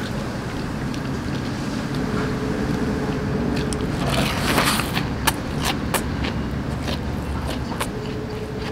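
Busy restaurant background noise: a steady low rumble, a brief hissing swell about four seconds in, then a few sharp clicks like dishes or utensils.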